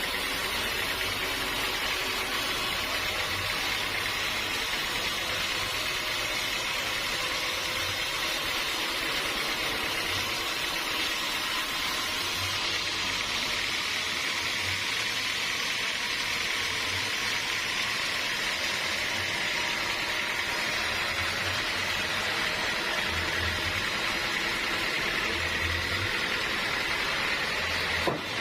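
Sawmill saw running steadily while sawing teak: an even hiss with a steady high whine over a low hum.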